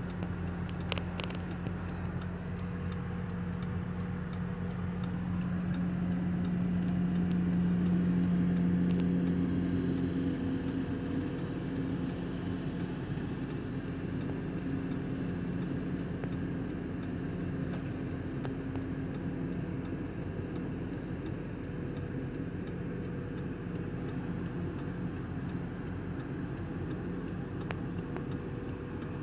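An engine running steadily with a low hum. It swells slightly and briefly rises in pitch about eight seconds in, and a second, higher tone joins for a stretch after that.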